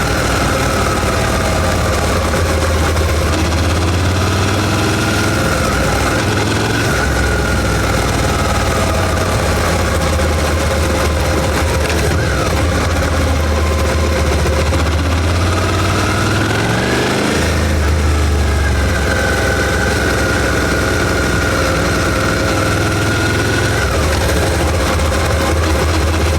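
Suzuki SV650's 645 cc 90-degree V-twin engine through its stock exhaust, running at low speed. The note rises and falls gently with the throttle, climbing about two-thirds of the way through, then dropping suddenly.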